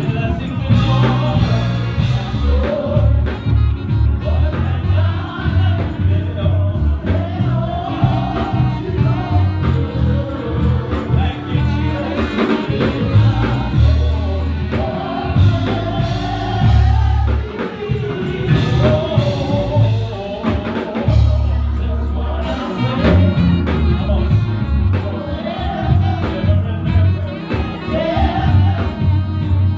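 Live gospel praise music with singing over a strong, moving bass line.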